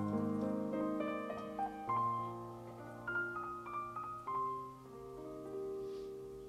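Background piano music: slow held notes and chords, growing softer after about four seconds.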